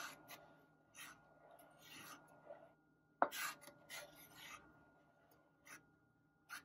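Wooden spoon stirring sago pearls in jaggery syrup in a stainless steel pot, scraping against the pot in short strokes about once a second. The sharpest scrape comes about three seconds in.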